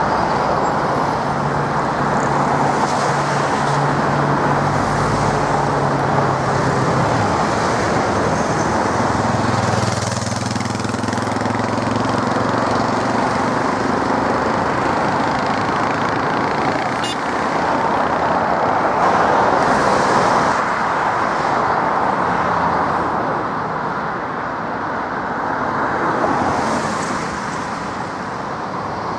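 Steady roar of engines: road traffic passing nearby mixed with jet aircraft taxiing, with low engine hums that shift about a third of the way in.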